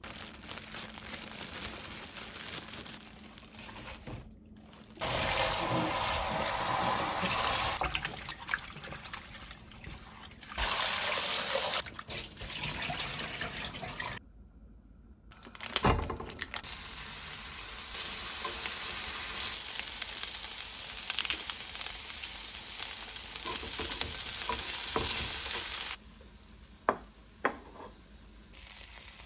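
Kitchen tap running water into a sink while food is rinsed, heard in several short edited clips that start and stop abruptly. A few sharp clicks sound near the end.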